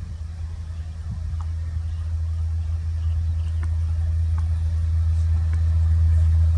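WAP-7 electric locomotive approaching at the head of a passenger train: a low steady hum that grows steadily louder as it nears.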